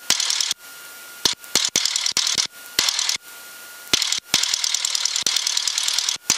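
Crackling radio static over the aircraft's headset intercom, full of fast clicks. It drops out several times to a faint steady tone. The airport weather broadcast frequency is off air while its recording is being updated.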